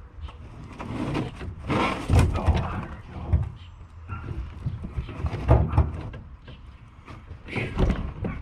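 Irregular thumps, knocks and scrapes, with a few heavy bangs about two, three and five and a half seconds in.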